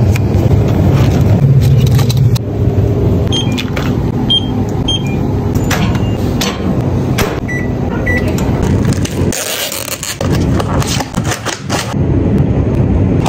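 Low steady hum of a running convenience-store microwave oven, with several short electronic keypad beeps a few seconds in and two lower beeps a little later. Near the end a drink splashes as it is poured over ice in a plastic cup.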